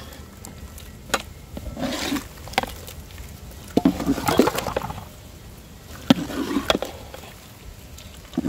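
Metal cooking vessels knocking and scraping: fried onions being tapped out of a pan into a large sambar pot, with several sharp knocks a second or two apart among bursts of scraping clatter.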